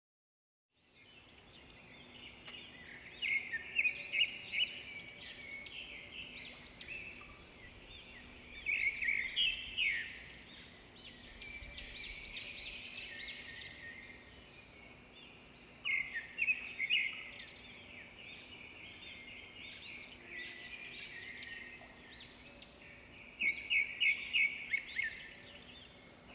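Many small birds chirping and twittering, their quick calls overlapping, with several louder flurries of chirps, over a faint steady hum.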